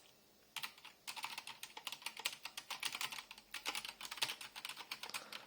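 Rapid keystrokes on a mechanical keyboard fitted with HyperX Pudding keycaps: a couple of single key clicks, then a fast run of key presses from about a second in.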